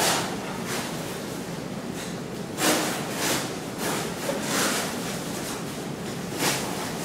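Large fabric costume pieces swishing and rustling as they are shaken and swung, in several short swishes over a steady hiss.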